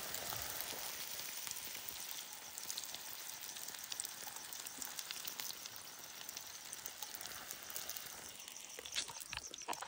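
Sel roti, a ring-shaped rice-flour bread, deep-frying in hot oil: a steady sizzle with small scattered crackles.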